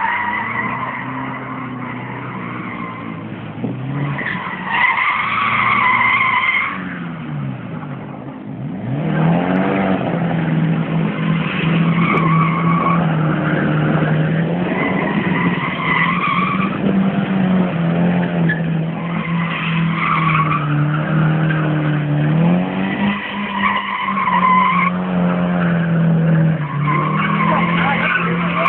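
A car drifting: the engine held at high revs while the rear tyres squeal in repeated spells of a second or two, the revs dropping and climbing again between slides.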